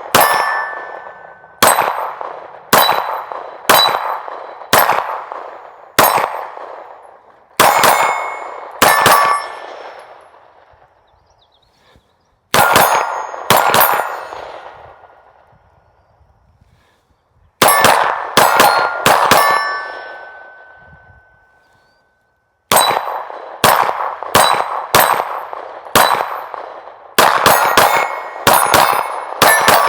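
Rapid string of shots from a Smith & Wesson M2.0 Competitor Metal HD pistol, many of them followed by the ring of a hit steel target. The shots come in bursts of several, broken by a few pauses of two or three seconds, with a quick run near the end.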